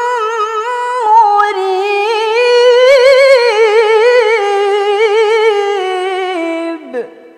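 A woman reciting the Qur'an in melodic tilawah style, drawing out the end of a verse in one long ornamented phrase with fast warbling vibrato. The pitch lifts around the middle and falls back, and the word "murīb" closes the phrase just before the voice stops.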